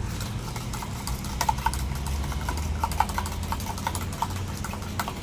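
Metal utensils tapping and clinking on a flat cooking griddle in irregular light taps, each with a short ring, over a steady low hum.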